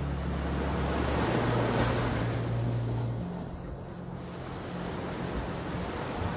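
Small waves washing onto a sandy beach, swelling about two seconds in and ebbing, with wind buffeting the microphone and a steady low hum beneath.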